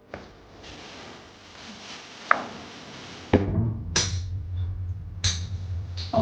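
A handful of sharp knocks, roughly a second apart, over a low steady hum.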